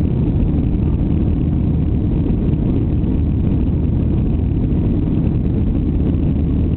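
Jet airliner's engines and rushing air during takeoff: a steady low rumble with no rise or fall in level.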